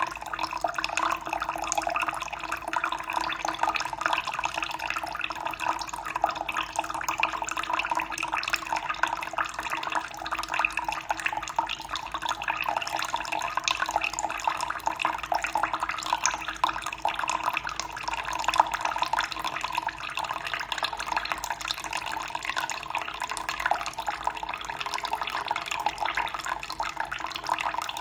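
Running water splashing and gurgling in a steady, unbroken flow, with a faint low steady tone beneath it.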